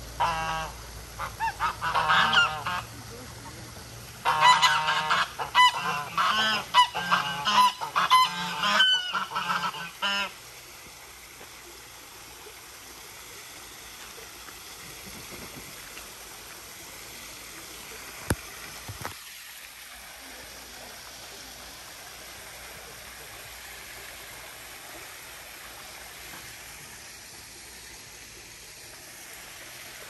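Geese honking loudly in two bouts of rapid repeated calls over the first ten seconds. After that, a small waterfall trickles steadily.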